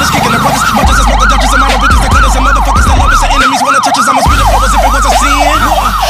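Police patrol car sirens on a fast yelp, a rising-and-falling wail repeating about four times a second, from a passing convoy of patrol cars.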